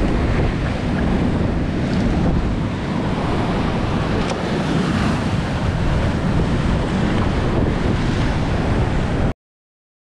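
Sea surf breaking and washing against shore rocks, with wind buffeting the microphone; a steady, loud rush that cuts off suddenly near the end.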